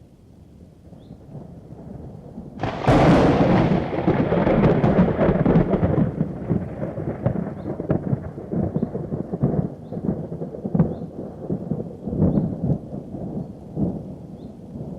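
A thunderclap from a thunderstorm. A low rumble builds, then about three seconds in comes a sudden sharp crack. A long rolling rumble with crackles follows and slowly dies away.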